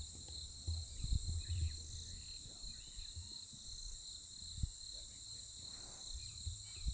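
Steady, high-pitched chorus of insects, with bursts of low rumbling and thuds about a second in and again near the end.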